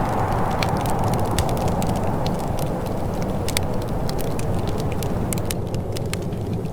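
Wood fire in a fireplace crackling, with frequent sharp pops and snaps over a steady low rush.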